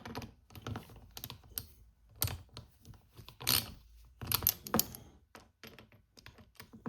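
Irregular light clicks and knocks of small metal parts being handled, as a reassembled fuel pressure regulator is worked on by hand.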